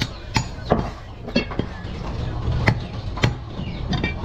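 Hand-held cleaver chopping goat meat on a wooden log block: about seven sharp chops at uneven intervals, the loudest about two-thirds of the way through.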